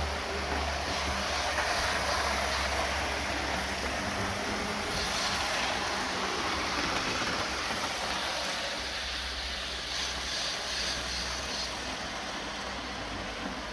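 Electric model trains running around the track, a steady whirring noise with a low hum underneath.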